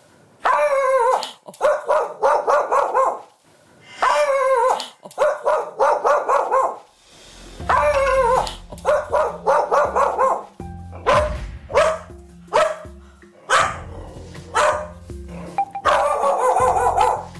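Medium-sized dog barking loudly in repeated volleys of rapid barks with short pauses between them. It is alarm barking at the front door, set off by sounds from outside.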